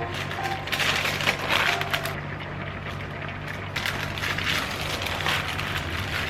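Crunching and crackling, probably from food being handled in a kitchen, in two spells: one about a second in and another near the middle.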